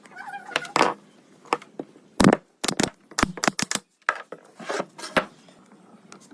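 An irregular run of sharp knocks and taps, about a dozen of them bunched between two and five seconds in, the loudest one a little after two seconds.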